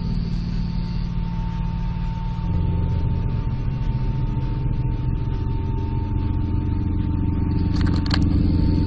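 A deep, steady droning hum made of a low, engine-like stack of tones, which shifts lower and grows stronger about two and a half seconds in, over a faint steady high whine. It is one of the unexplained 'strange sounds' recordings. A short crackle comes near the end.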